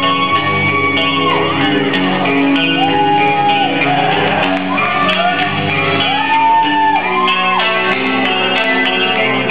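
Live heavy metal band playing: distorted electric lead guitar holding long notes that bend up and back down in pitch, over distorted rhythm guitar, bass and drums, with room echo.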